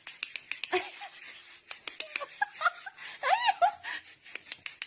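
Laughter over a string of sharp clicks or taps, with two short squeaky calls that rise and fall about three and a half seconds in.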